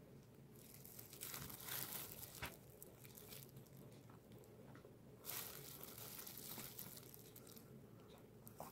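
Faint crinkling of thin disposable plastic gloves as gloved hands handle a bread roll, in short spells about a second in and again past the five-second mark.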